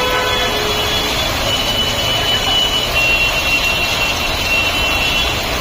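Steady road-traffic noise: vehicle engines running, with no single event standing out.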